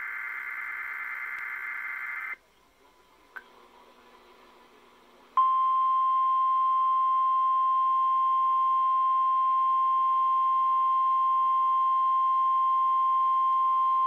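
NOAA Weather Radio weekly test: the end of a buzzy warbling digital header burst (the SAME data code), then about three seconds of hush with a faint click. Then comes the 1050 Hz warning alarm tone, one steady high beep held about nine seconds and cut off sharply.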